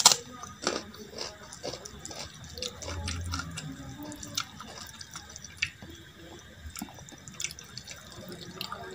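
A sharp crunch of a bite into a raw green chilli right at the start, then close-up eating sounds: wet squelching and clicking as fingers mix rice into runny dal, with chewing and lip smacks.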